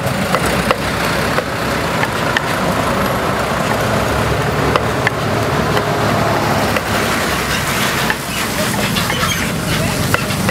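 Steady traffic noise on a busy street, with vehicle engines running. Scattered short knocks come from a wooden pestle in a wooden mortar as herbs are pounded.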